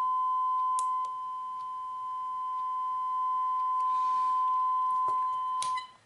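Steady 1 kHz sine-wave test tone through a small amp, fed through a wah-pedal-type ferrite inductor. Its level drops about a second in and comes back up past the middle as a strong speaker magnet is turned near the inductor's core, which damps the signal. The tone cuts off just before the end, with a light click or two.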